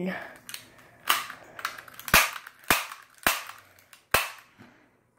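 Airsoft pistol firing five sharp shots, spaced about half a second to a second apart.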